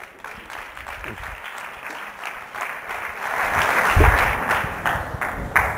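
Audience applauding, building to its loudest about two-thirds of the way through and thinning out near the end, with a low thump at the peak.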